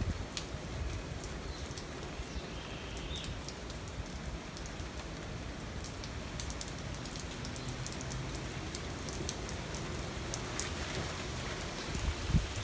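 Steady rain falling on garden foliage and ground, a continuous hiss with many individual drops ticking through it.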